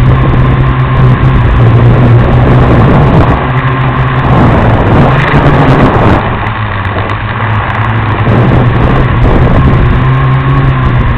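Small FPV quadcopter's motors and propellers running in flight, a steady buzzing hum with a rush of noise, swelling and easing a little as the throttle changes.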